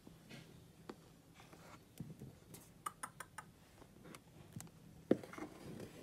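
Handling noise: scattered light clicks, taps and rubbing against hard plastic, with one louder knock about five seconds in.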